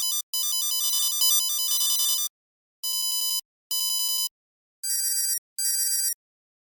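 Electronic ringtones in quick succession. A fast run of melodic beeping notes lasts about two seconds, then comes a pair of short rings under a second apart, then another pair in a different tone.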